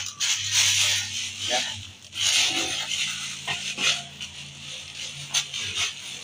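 Clear plastic bag crinkling and rustling as it is handled around a coiled long whip, in two longer bursts with smaller crackles between, over a steady low hum.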